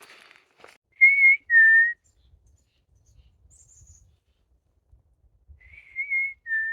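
A clear two-note whistle, a higher note then a slightly lower one, given twice: once about a second in and again near the end. It is part of a whistled back-and-forth with a songbird.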